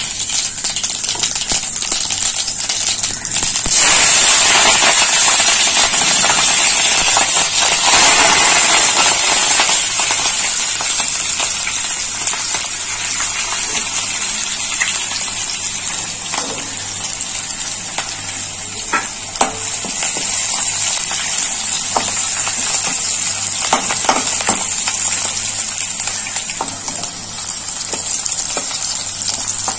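Cumin seeds, dry red chillies, green chillies and curry leaves sizzling in hot oil in a kadai for a tadka (tempering). The sizzle swells about four seconds in and eases after about ten seconds into a steady hiss with scattered crackles and pops.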